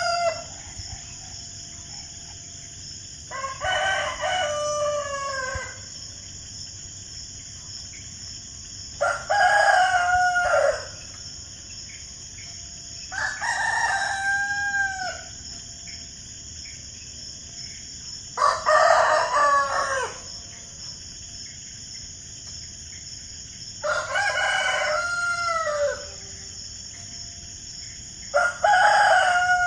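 Roosters crowing: about six full cock-a-doodle-doo crows, each about two seconds long and ending in a falling pitch, coming roughly every four to five seconds over a steady high hiss.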